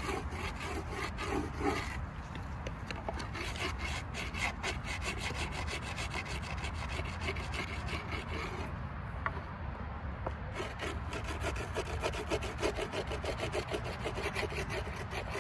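Rapid, repeated rasping strokes of a razor blade scraping and cutting grip tape along the edge of a skateboard deck, with a short pause of about a second and a half past the middle.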